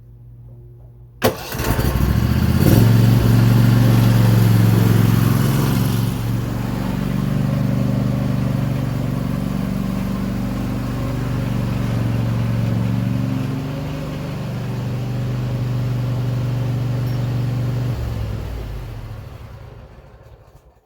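Snapper 360z zero-turn mower's twin-cylinder engine starting about a second in and then running, louder at first and steadier after, before it fades out near the end.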